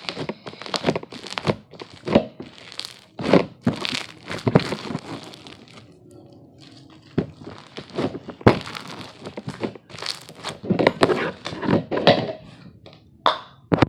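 Slime being squeezed and worked by hand close to the microphone: an irregular run of crackling clicks and pops from trapped air, with a brief lull around the middle.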